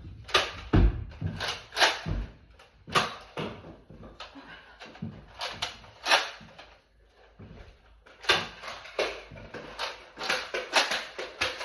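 Nerf blaster play: a string of irregular sharp clicks and clacks, about a dozen, with a quieter stretch in the middle.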